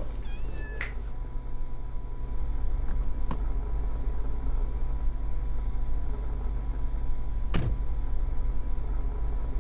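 A steady low rumbling hum with a faint high tone over it, broken by a few faint single clicks: about a second in, around three seconds in, and once more late on.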